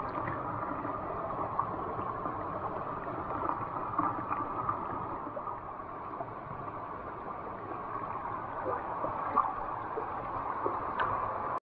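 Mountain stream water rushing and gurgling steadily, with a few faint ticks of water splashing. It cuts off suddenly near the end.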